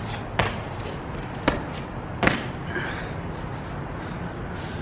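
Parkour tic-tac: a sneaker kicks off a stone wall and feet land on the ground, giving three sharp thuds in the first two and a half seconds, the last the loudest.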